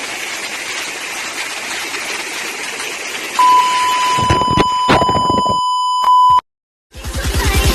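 Intro sound effect: a steady hiss like static, then about three and a half seconds in a steady high electronic beep tone with low thuds beneath it, which cuts off abruptly into a moment of silence before music starts near the end.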